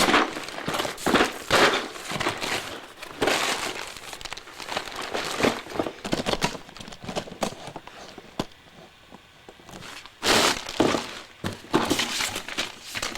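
A LEGO set's cardboard box being opened and its contents handled: repeated rustling and crinkling of cardboard, paper and plastic, with light knocks. It goes quieter a few seconds before the end, then comes a loud rustle.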